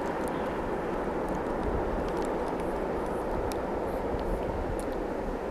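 Distant diesel freight locomotives approaching: a steady, even drone with a low rumble under it.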